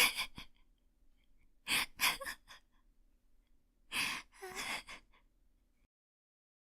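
A woman's long, soft laugh, mostly breath, in three bouts of short bursts about two seconds apart.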